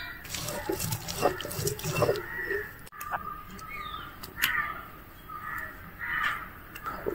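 Knocks and grinding of a stone roller crushing ginger and garlic on a granite grinding stone, loudest in the first two seconds. Crows caw several times in the second half.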